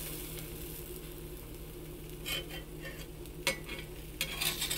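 Pancake batter sizzling in melted butter on a dosa pan, a steady hiss with crackling that picks up about halfway through. A few sharp clicks in the second half come from a metal spatula touching the pan.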